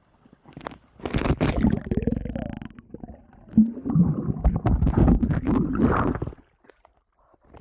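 Water splashing and gurgling with muffled rumbling as a kayak capsizes, starting about a second in and stopping suddenly about six seconds in.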